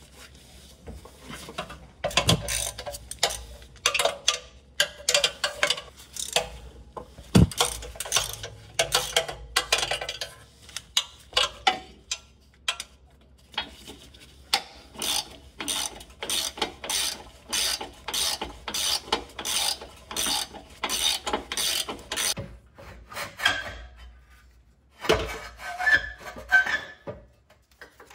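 Hand socket ratchet clicking in repeated quick strokes as fasteners are turned, with metallic clinks and a couple of sharp knocks, about 2 and 7 seconds in.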